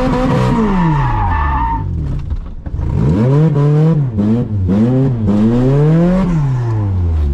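1980s Toyota Corolla's four-cylinder engine being revved. Its pitch falls away over the first two seconds, then climbs and drops in several quick throttle blips from about three seconds in, before sinking back to a low idle near the end.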